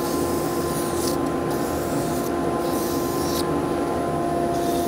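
Wood lathe and dust extractor running with a steady hum of several tones, while abrasive paper rubs on the spinning wooden bottle stopper blank, adding a hiss that comes and goes.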